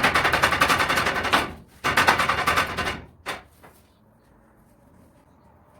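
Hot oil crackling and spattering in a frying pan as chicken fries, in two loud bursts about a second and a half each, then settling to a faint steady sizzle.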